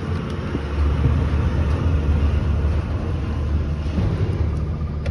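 A motor vehicle's engine running nearby, a steady low rumble that grows slightly louder about a second in.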